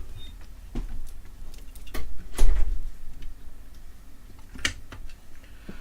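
Irregular clicks and knocks of UPS parts and screws being handled and fitted during reassembly, about five in all, the loudest about two and a half seconds in.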